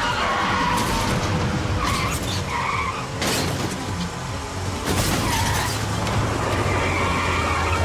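Cars' engines running hard with repeated tire squeals as they skid through a chase. Two sharp noisy bursts come about three and five seconds in.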